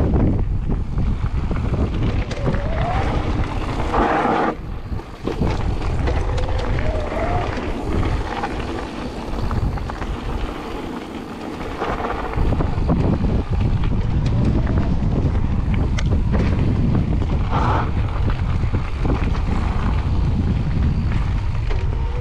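Wind buffeting the microphone over the rumble and rattle of an e-mountain bike's tyres rolling fast on a loose gravel trail. It eases for a few seconds in the middle, then returns to full level.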